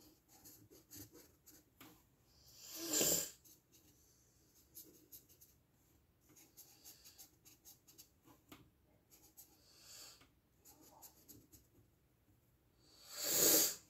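A person breathes out heavily twice, about three seconds in and again near the end. In between, faint scratching of a coloring pen on the paper of a coloring book.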